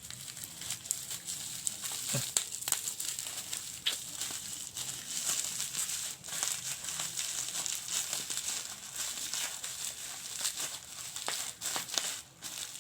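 Packaging being unwrapped by hand: a continuous run of crinkling and crackling with many small sharp clicks.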